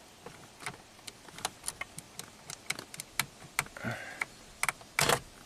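Irregular sharp plastic clicks and rattles of fingers working the battery saver relay loose in a 1997 Ford F-150's under-dash fuse panel, with a louder clatter about five seconds in.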